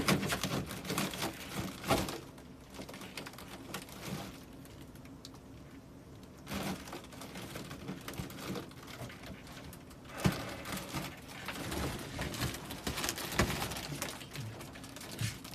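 Handling noise: rustling and crinkling with scattered light clicks and knocks as things are picked up and moved about. It goes quieter for a few seconds about two seconds in, then the rustling and clicking pick up again.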